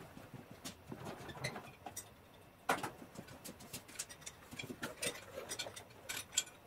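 Wrenches clicking against a hydraulic hose fitting as it is tightened: scattered light metallic clicks, the sharpest about three seconds in, with a few more near the end.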